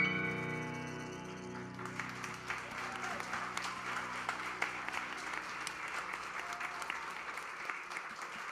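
The last chord, on grand piano and cello, rings and fades over about the first two seconds. Then the audience applauds steadily.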